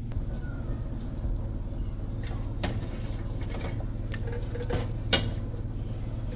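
A few sharp knocks of a wooden spatula against a stainless steel cooking pot, over a steady low hum.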